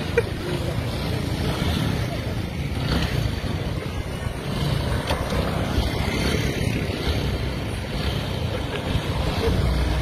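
Small single-cylinder motorcycle engine running, a steady low rumble, with wind buffeting the microphone.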